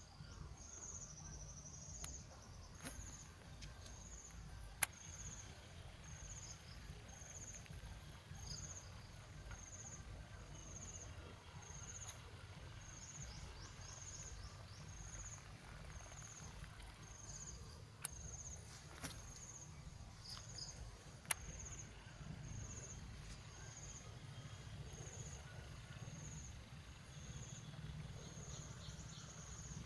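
An insect chirping high and regularly, about once a second, over a low steady rumble, with a few sharp clicks scattered through.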